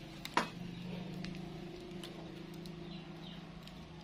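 Firewood crackling under a wok, with scattered sharp pops and one loud crack about half a second in, over a steady low hum.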